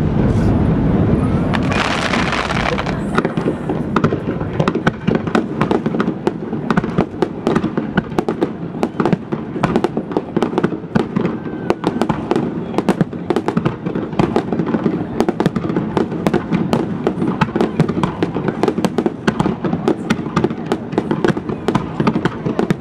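Aerial firework shells bursting in a rapid, continuous barrage: many booms and crackles in quick succession, with a brief hiss about two seconds in.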